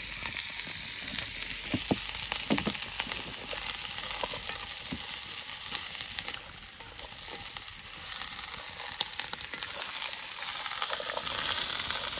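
Food sizzling in hot oil in a camp oven, a steady hiss, with a couple of brief knocks about two seconds in.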